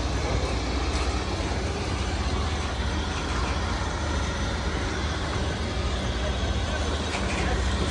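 Heavy diesel truck engine running steadily, a constant low drone.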